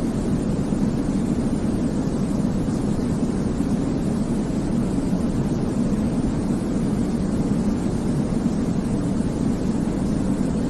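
Steady, unchanging white noise for baby sleep, weighted low so it comes across as a deep rushing hum rather than a bright hiss.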